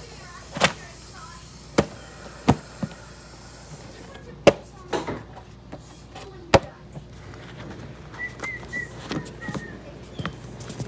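Handling noises: a book and a plastic cooler bin knocked and shifted by hand, giving about six sharp knocks and clacks in the first seven seconds, then a few faint short high chirps near the end.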